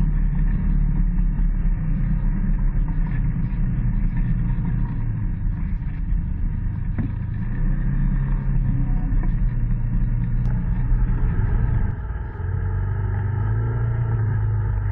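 Polaris ACE 900 side-by-side's twin-cylinder engine running as the machine crawls a rough, rocky trail, its pitch wavering with the throttle. About twelve seconds in it eases off and settles to a steadier, lower note.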